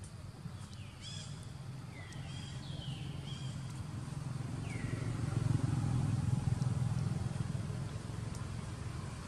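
A passing motor vehicle: a low engine rumble that swells to its loudest about six seconds in and then eases off. A few short, high, falling chirps sound over it in the first five seconds.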